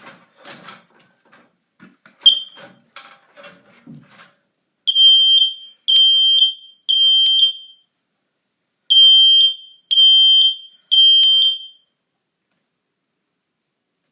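Kidde 10SDR smoke alarm sounding its test alarm: a short chirp about two seconds in as the test button is pressed, then two groups of three loud, high beeps separated by a pause, the temporal-three evacuation pattern. Faint handling noise comes before the beeps.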